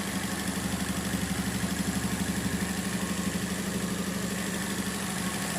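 Small 550 cc Mitsubishi Minicab kei-truck engine idling steadily with an even, rapid pulsing beat.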